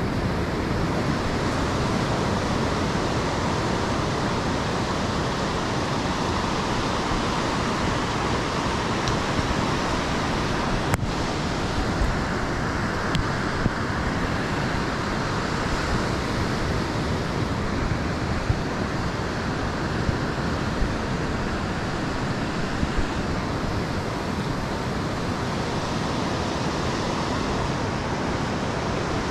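Steady rush of ocean surf mixed with wind noise, with one sharp click about eleven seconds in and a few faint knocks after it.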